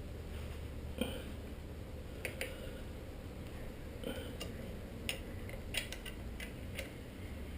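Irregular light metallic clicks and clinks of hand tools on a bicycle crank arm and bottom bracket as the crank is tightened back onto the spindle, about ten scattered taps over a low steady hum.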